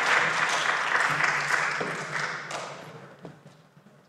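A small congregation applauding, the clapping dying away about two to three seconds in. A few light knocks follow near the end.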